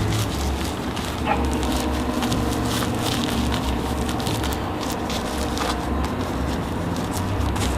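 Crinkling, rubbing and tapping of trunk insulation with an aluminum barrier being worked down into place by hand, a scatter of short crackly clicks over a steady low hum.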